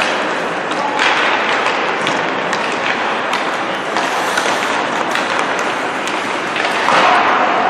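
Hockey warm-up on an indoor rink: skate blades scraping the ice and pucks clacking off sticks and boards, many sharp knocks over a steady arena hubbub.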